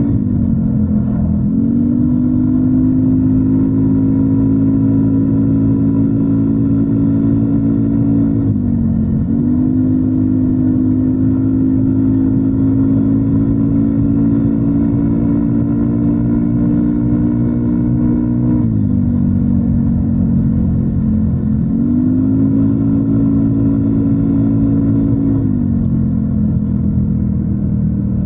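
A Yamaha NMAX 155 scooter's single-cylinder engine, breathing through a DS4 aftermarket muffler, runs at a steady cruise under a constant low rumble. Several times the engine note dips briefly as the throttle is eased, then climbs back to its cruising pitch.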